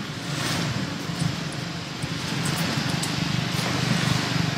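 A steady low rumble under an even hiss, like a motor running at idle.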